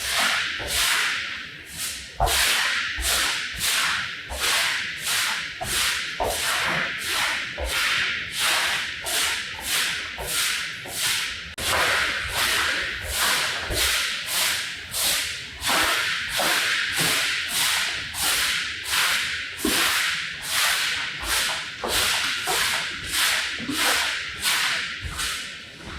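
Rhythmic hand strokes of a tool dragged over a filthy, sludge-caked rug: quick swishing scrapes, about two a second, kept up without a pause.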